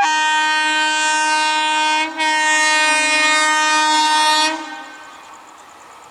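WAP-4 electric locomotive's air horn sounding two long blasts, about two seconds each with a brief break between them, a loud chord of several tones. After the horn stops, a much fainter steady noise remains.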